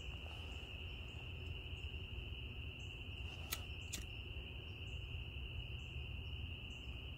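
A steady, high-pitched animal chorus, like distant calling insects or frogs, with two light clicks about three and a half and four seconds in.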